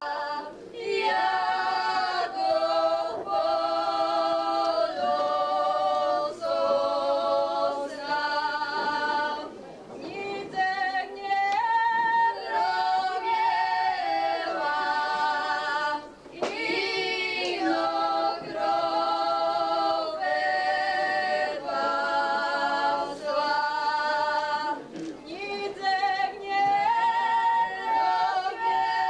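A small group of women singing a folk song in close harmony, without instruments, in phrases of held notes with short breaks between them.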